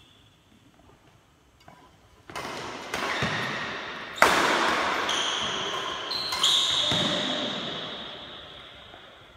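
Badminton rally: rackets striking the shuttlecock, starting about two seconds in, with the loudest hit about four seconds in and another about two seconds later, each echoing and dying away in a large hall.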